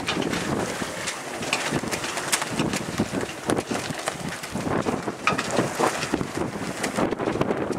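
Wind buffeting the microphone in irregular gusts aboard a sailing yacht under way, over the rush and splash of choppy water along the hull.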